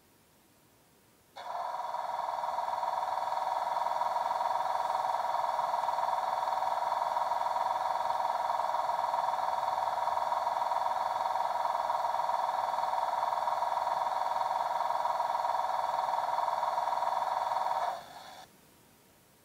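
Class 91 electric locomotive's auxiliary compressor, a recording played back through a model locomotive's DCC sound decoder speaker. It is a steady, even drone that starts abruptly about a second and a half in and stops near the end with a brief fading tail. This is the start-up stage that comes before the pantograph is raised.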